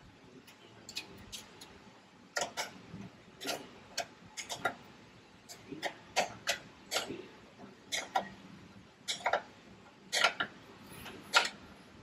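Irregular sharp clicks and taps, singly and in quick pairs or triples, from hand tools and cable fittings being handled while battery cables are fastened in an engine bay.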